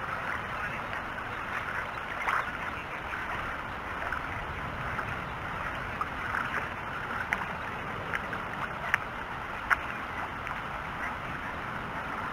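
Steady rushing of water at a river mouth, with a few sharp clicks between about seven and ten seconds in.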